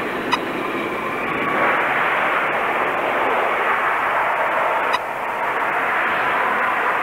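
Engines of a twin-jet airliner with rear-mounted engines rolling on the runway: a steady jet noise with a faint whine, which grows louder about a second and a half in. Two short clicks, one near the start and one about five seconds in.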